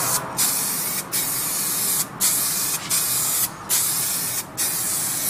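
Aerosol spray-paint can spraying in a steady hiss, broken by brief stops about once a second as the paint goes on in passes.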